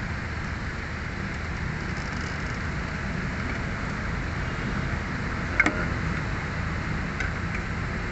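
Steady low rumble and hiss of background noise, with one sharp metallic click a little past halfway and a fainter one later, as a band-type filter wrench grips and turns the diesel fuel filter.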